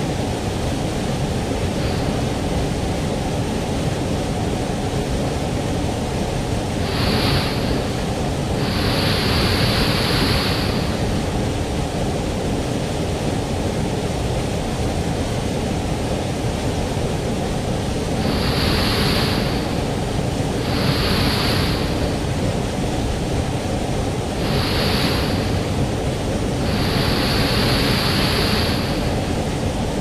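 Steady rushing of a mountain stream's waterfall, running high and swollen after a typhoon: a loud, deep, even rush of falling water, with a brighter hissing splash surging up about six times for a second or two each.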